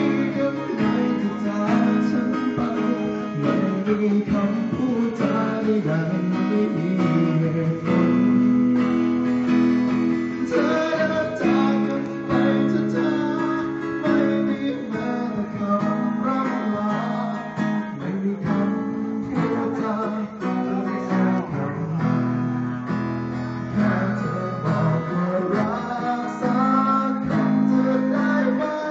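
A man singing into a microphone, accompanied by a strummed acoustic guitar.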